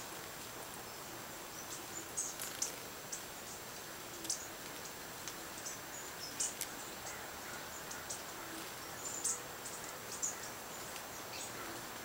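Small backyard songbirds calling: short, sharp, high chirps scattered irregularly, about one a second, over a steady outdoor hiss.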